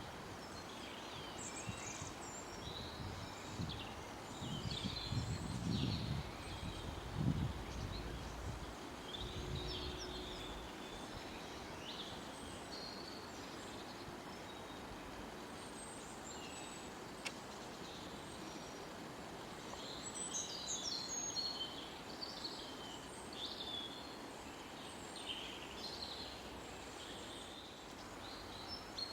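Forest birds calling, short high chirps and trills scattered throughout over a steady background hiss. A low rumble swells for a few seconds about four to eight seconds in.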